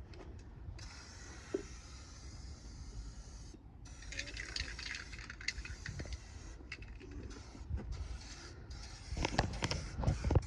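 Aerosol spray-paint can hissing in long bursts, with a short break about three and a half seconds in. A few knocks and bumps near the end.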